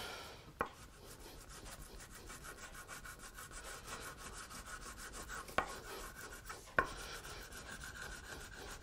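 Small metal tool rubbed back and forth over paper laid on a maple board, pressing a printed image onto the wood as a transfer; a faint steady scraping, with three short sharp clicks, the clearest about half a second in and the other two near the end.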